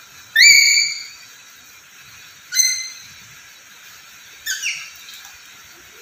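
Black-capped lory giving three high-pitched whistled calls about two seconds apart; the first call sweeps up and is held, and is the loudest and longest, and the last is a quick double note.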